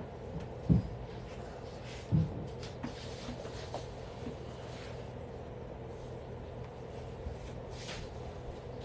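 Two dull, low thumps about a second and a half apart, with a few faint clicks, over a steady low hum.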